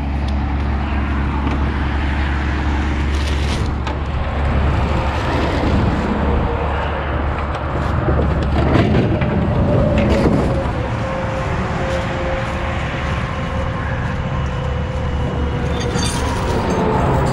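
Steady low rumble of an idling tow truck's diesel engine with interstate traffic noise, broken by a few knocks and rustles of crash debris being picked up. Near the end there are some metallic clinks of a tow chain.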